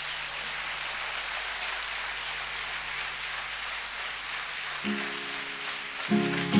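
Audience applauding steadily after a song ends, with a faint low note held underneath. About five seconds in a chord enters, and near the end the instrumental intro of the next song starts up.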